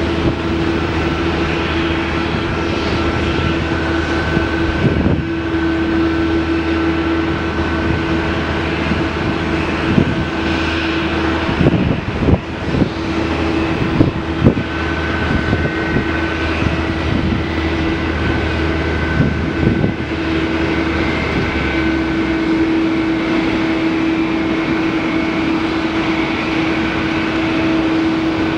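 Jet engines of a Boeing 777-200ER airliner running with a steady drone and a held whining tone. A few irregular low thumps come about 10 to 15 seconds in, and a low hum underneath stops about 22 seconds in.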